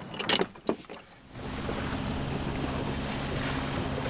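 A few sharp knocks and clicks of handwork. About a second and a half in, a sailing yacht's inboard engine begins a steady drone, mixed with wind and rushing water as the boat motors along, with wind buffeting the microphone.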